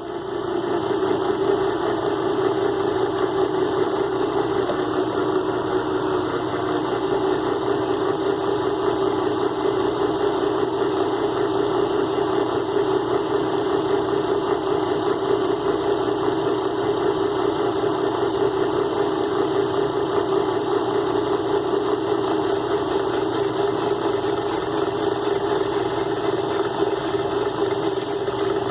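Mini lathe's small DC motor spinning up at the start and then running steadily at low speed, with a grooving tool cutting an O-ring groove in an aluminium workpiece.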